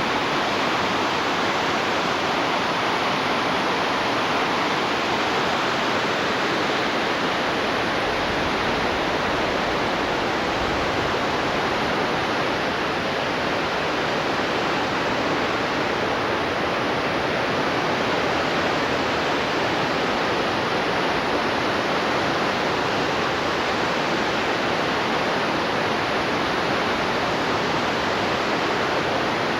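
Sheyenne River floodwater rushing out over Baldhill Dam, a steady, dense roar of falling and churning water. The dam is running at flood flow, with water coming over the top.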